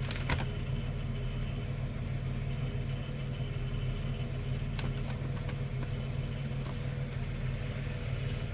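A steady low mechanical hum, like an idling engine or running machine, with a few faint clicks about five seconds in.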